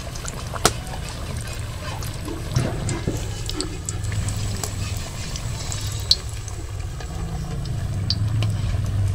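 Battered potato chops deep-frying in hot oil in a wok: a steady sizzle with scattered sharp pops and crackles, over a low steady rumble.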